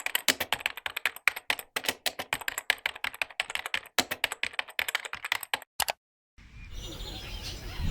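Fast typing on a computer keyboard, many quick key clicks, stopping about six seconds in. Near the end an outdoor background with faint bird chirps takes over.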